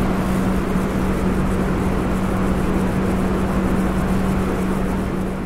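A steady mechanical drone: a constant low hum over an even rushing noise, unchanging throughout.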